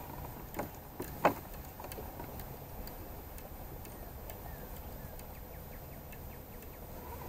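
Steady low rumble of wind and water around a fishing kayak, with three sharp clicks or knocks in the first second and a half, the third the loudest.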